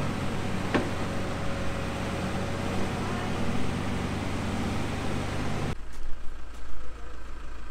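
Truck motorhome's engine running steadily, with a single sharp click about a second in. Almost six seconds in it cuts off abruptly to quieter, uneven noise.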